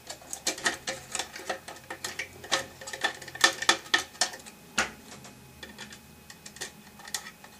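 Irregular light clicks and taps of a plastic-housed circuit board being handled and pried with a small screwdriver as it is worked free over brass standoffs. The clicks come thick at first and thin out after about five seconds.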